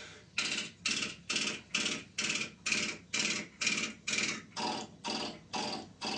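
A man imitating a galloping horse's hoofbeats with his mouth: an even run of clopping sounds, a little over two a second.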